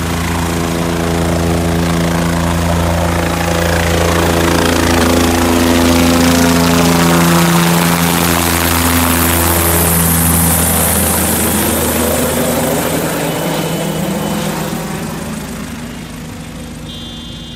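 Four-bladed light helicopter's rotor and engine running as it climbs away from just above the treetops, loudest as it passes overhead about halfway through, then fading steadily as it flies off.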